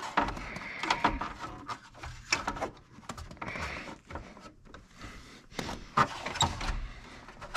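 Plastic under-dash trim panel and wiring being handled and pushed into place: irregular rustling and scraping with light clicks, and a sharper knock near the end.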